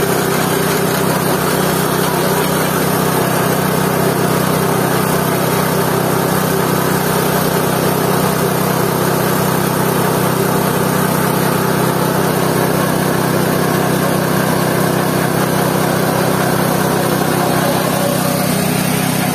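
Small petrol engine of a GT-14 organic-waste pulverizer running steadily at a constant speed.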